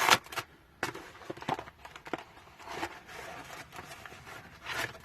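A battered parcel being handled and opened by hand: irregular knocks and clicks with rustling of the packaging, which stops near the end.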